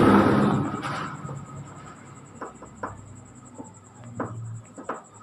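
A vehicle's engine rumble dying away in the first second. After that come a few faint, scattered sharp clicks over a steady high-pitched whine.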